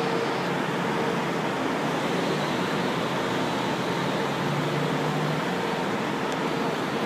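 Metro train, a Mafersa-built stainless-steel car, moving slowly along an underground platform: a steady noise of wheels and running gear with faint steady hum tones from the motors.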